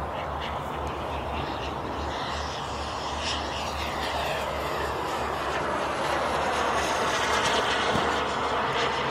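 Turbine engine of a BVM Ultra Bandit RC jet flying past: a steady jet rush with a whine that falls in pitch, growing louder in the second half and loudest about eight seconds in.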